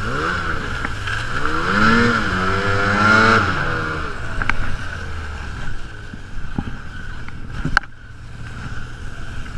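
Snowmobile engine revving up and back down over the first few seconds, with a steady high whine, then running lower with a few sharp knocks.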